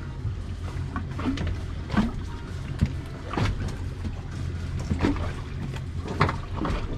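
Boat's outboard motor running low and steady, with a few scattered sharp knocks on the boat.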